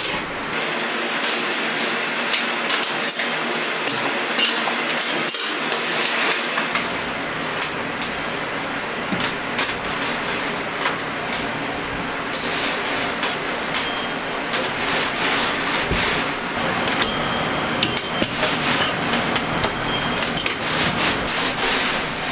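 Candy-kitchen work noise: a steady din with frequent sharp knocks and clicks as hard candy is handled on a steel worktable and drawn through a hand-cranked candy-pulling machine.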